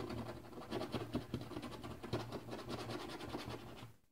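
A coin scraping the latex coating off a paper lottery scratch ticket in quick, rapid back-and-forth strokes, stopping near the end.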